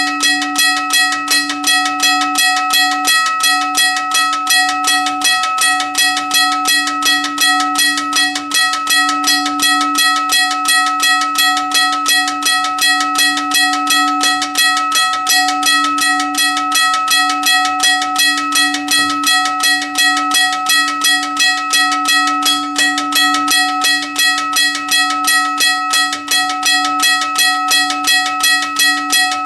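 Union Switch & Signal teardrop railroad crossing bell ringing continuously, its electric striker hitting the gong about three times a second so each stroke rings into the next.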